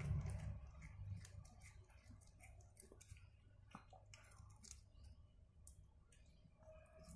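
Faint, scattered clicks and crunches of a cat chewing a green lizard.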